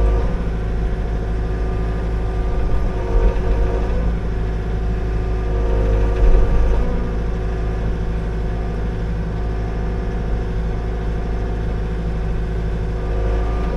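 Liugong 9051F mini excavator's diesel engine running steadily under work, with a few brief higher whines as the hydraulics are worked and a louder moment about six seconds in.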